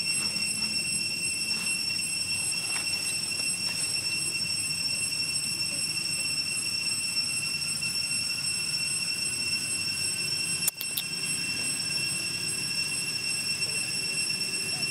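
Cicadas droning: a steady, high-pitched whine that holds one pitch throughout, broken by a brief click about two-thirds of the way through.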